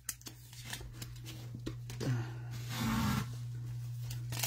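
Handling trading cards and packaging: light clicks of a card being slid into a rigid plastic top loader, then a brief rustle of a foil card pack being picked up off the stack, over a steady low hum.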